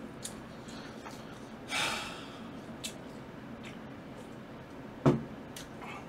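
Eating sounds: faint chewing and mouth clicks over pizza, a loud sniff through the nose just under two seconds in, and about five seconds in a sharp thump as a soda can is set down on the desk.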